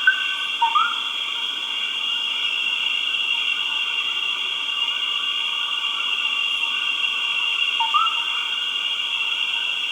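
Jungle ambience: a steady, dense chorus of insects, with two short rising calls from an animal, one about a second in and one near the end.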